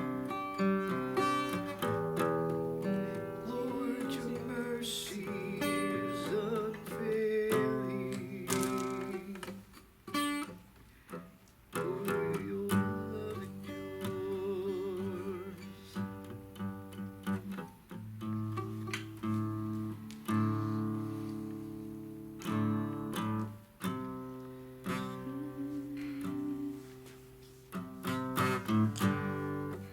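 Acoustic guitar strummed and picked in a slow worship-song accompaniment, with a voice singing softly along at times.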